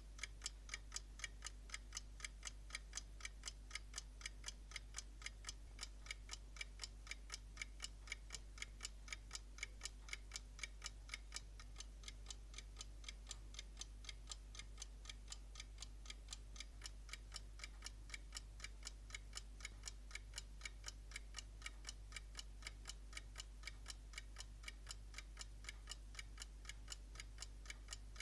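Jerger Jumbo alarm clock's unjeweled W3 472 movement ticking at a fast, even, unbroken beat.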